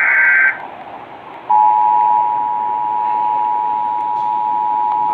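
The last of an Emergency Alert System digital header burst, a harsh data screech lasting about half a second. About a second and a half later the EAS attention signal starts: two steady tones sounding together, loud and unbroken.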